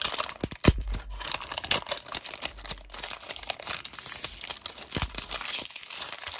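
Thin printed plastic wrapper being torn and peeled off a plastic Mini Brands capsule ball by hand: continuous crinkling and crackling with many sharp little clicks.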